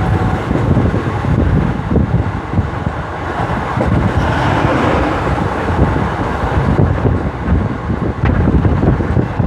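Wind buffeting the microphone: an uneven, gusty low rumble, with a rushing hiss swelling up briefly near the middle.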